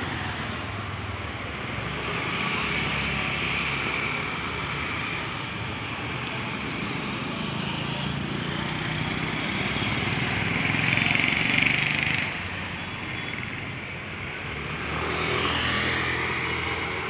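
Street traffic: motor scooters and motorbikes running and passing, a steady rumble that swells louder as vehicles go by, once in the middle and again near the end.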